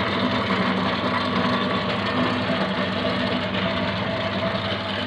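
An engine-driven machine running steadily, with a constant low hum and an even mechanical drone.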